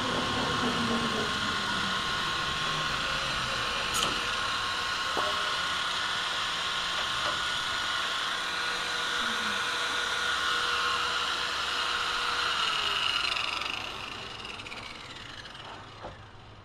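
A machine running steadily with a whine over a hiss, with a couple of light knocks. It fades and drops in pitch over the last few seconds.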